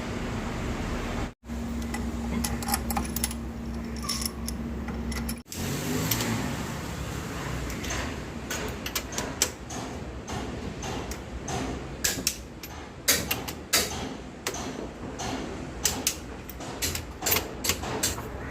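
Tata Indigo CS engine running steadily for about five seconds, cut off abruptly twice, followed by a long series of irregular sharp metallic clicks and clinks.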